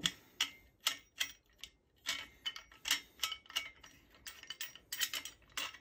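Folding multi-tool shovel's pivot bolt being screwed tight by hand to lock the blade straight: a run of small, irregular metal clicks, with a cluster of louder ones about five seconds in.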